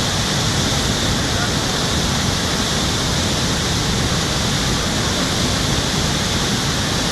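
Steady rushing of a river in flood, a dense, unbroken wash of water noise.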